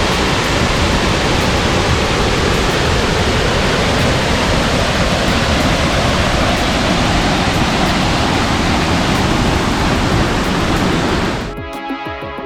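Waterfall rushing steadily, a loud even roar of falling water. It cuts off about a second before the end, where background music comes in.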